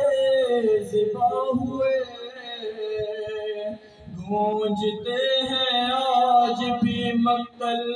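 A man chanting a noha, a sung Urdu lament for Imam Husayn, unaccompanied and amplified through a microphone, in long held notes that glide between pitches, with brief breaks for breath.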